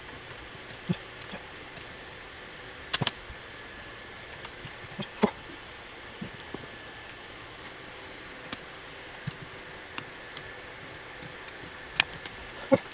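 Scattered small clicks and knocks, about ten of them spread out, from a screwdriver and screws as the Nakamichi 1000ZXL cassette deck's front panel is screwed together, over a steady hiss.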